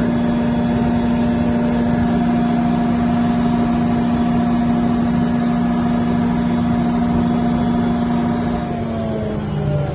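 1600 kVA Detroit Diesel generator set's diesel engine running at a steady speed. About nine seconds in, its pitch falls as the engine slows down.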